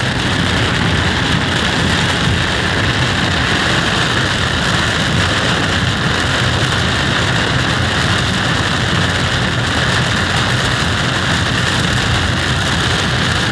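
Torrential rain and road spray drumming on a moving car's roof and windshield, heard from inside the cabin as a loud, steady hiss over the low rumble of the car on the flooded road.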